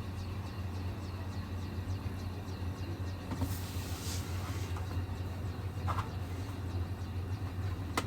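A steady low hum, with a brief rustle about three and a half seconds in, a soft click near six seconds and a sharp click at the end.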